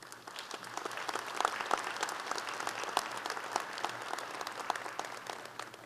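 Audience applauding: a dense patter of many hands clapping that builds during the first second and dies away near the end.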